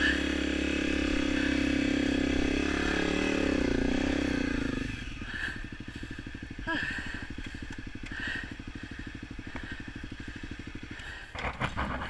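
Honda CRF250L single-cylinder engine running as the bike rides up a sandy trail, with the pitch wavering under throttle. After about five seconds it drops to a quieter, lower chugging run. A few knocks come near the end.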